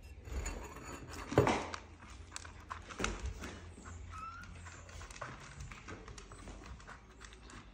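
A puppy and small kittens scuffling and scrabbling about, paws and bodies on a cat bed and a hard floor, with many small knocks and one louder bump about a second and a half in. A few faint, short, high calls come about four and five seconds in.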